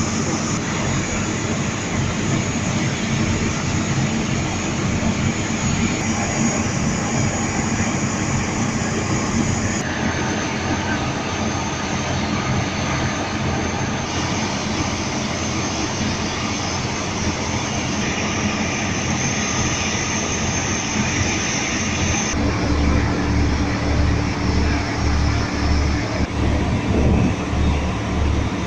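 A boat's engine droning steadily, heard from on board, with rushing water and wind. About two-thirds of the way through the drone turns deeper, with an even pulsing throb.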